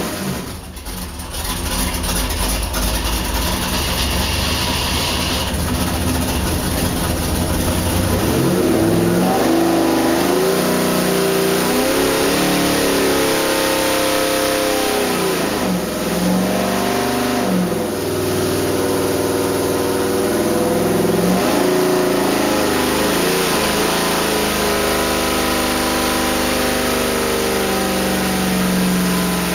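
406-cubic-inch small-block Chevrolet V8 running on an engine dyno. It holds a low, steady speed for the first several seconds, then is revved up and down repeatedly, its pitch rising and falling in several swings.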